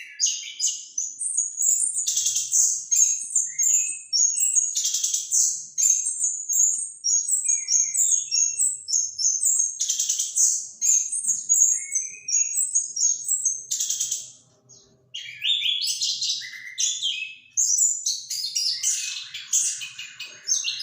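Orange-headed thrush (anis kembang) singing a long, continuous run of varied quick whistled and chattering phrases, its 'ngerol' rolling song, with one brief pause about two-thirds of the way through.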